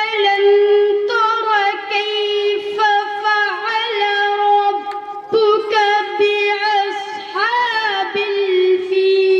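A boy chanting a devotional Islamic recitation unaccompanied. He holds long steady notes broken by ornamented turns and pitch bends, with short breaks between phrases.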